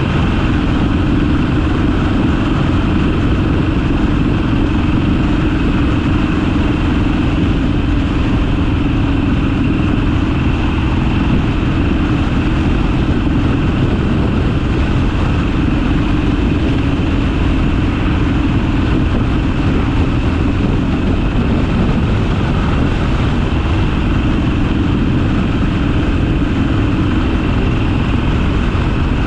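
Harley-Davidson Sportster's V-twin engine running steadily, its note holding constant with no revving or gear changes.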